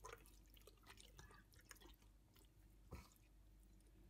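Faint wet squelching and small clicks of hands massaging seasoning into the skin of a raw whole chicken, with one sharper knock about three seconds in.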